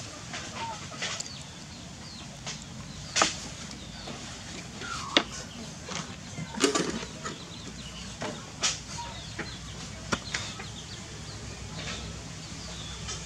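Scattered sharp clicks and short knocks, a few louder than the rest, with faint short calls in the background and a low steady hum underneath.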